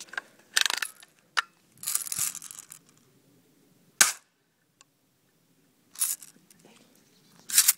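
BB gun firing: several short, sharp cracks spread out over a few seconds, the sharpest about four seconds in.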